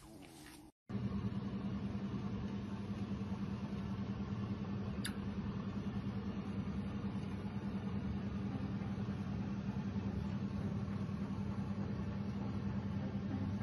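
Steady mechanical hum with a low drone and hiss, starting about a second in after a brief dropout; a single short high click about five seconds in.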